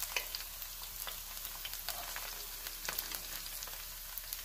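Hot oil sizzling in a frying pan around slices of cumin-marinated pork loin, a steady hiss with scattered sharp crackles and pops.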